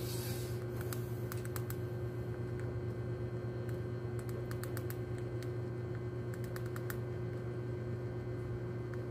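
A rat chewing hard blue poison bait grains, giving small crisp clicking crunches in short clusters, over a steady low hum.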